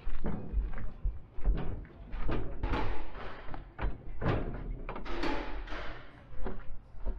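Repeated thuds and knocks as used car tires are thrown into a semi-trailer's hollow box and land on the pile, with a low rumble of wind on the microphone.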